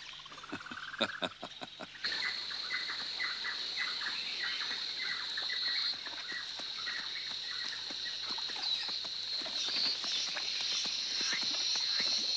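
Jungle ambience: a steady high-pitched insect drone that sets in about two seconds in, with bird chirps and horses' hooves stepping through the undergrowth.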